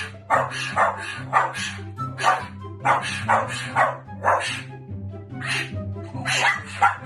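A dog barking over and over, in short sharp barks about two a second, over background music with a steady low bass line.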